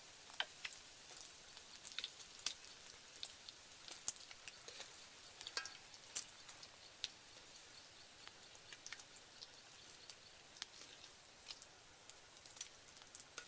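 Eggs frying in hot oil in a wok over a wood fire: a faint steady hiss with scattered sharp pops and crackles.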